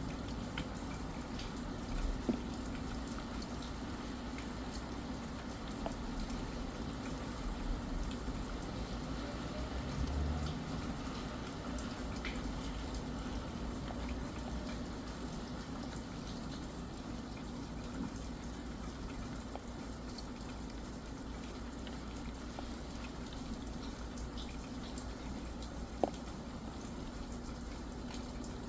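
Steady rain: an even hiss with scattered drops ticking, and one sharper tick about 26 seconds in.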